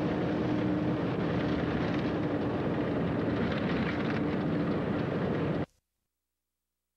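Steady road and engine noise inside a moving truck's cab at highway speed, which cuts off abruptly near the end.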